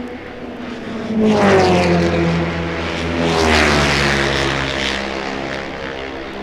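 Racing cars passing at speed, two in quick succession about 1.5 and 3.5 seconds in. Each engine note drops in pitch as the car goes by, then fades away.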